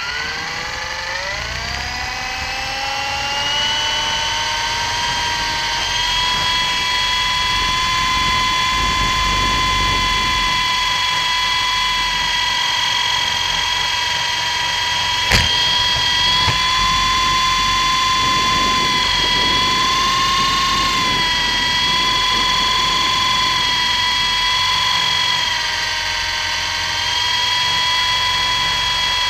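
Electric motor and rotor of an MJX F45 RC helicopter, heard from a camera strapped to its frame: a whine that rises in pitch over the first few seconds as it spools up, then holds a steady high whine in flight, wavering a little now and then. Wind gusts rumble on the microphone, and there is one sharp click about halfway through.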